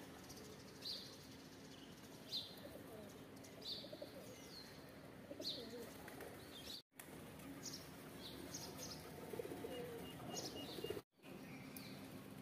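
Rock pigeons cooing softly, with short high chirps from small birds repeating every second or two. The sound drops out briefly twice.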